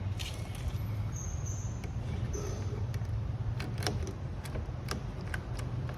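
Scattered sharp clicks and light rattles of a BMW E60 door lock cylinder and handle parts being worked loose and pulled out of the door, over a steady low hum; the clicks cluster about three and a half to five and a half seconds in.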